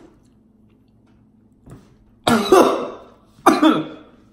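A man coughing and clearing his throat, two loud coughs a little over a second apart in the second half. His throat is burning from a chili-extract chocolate bar.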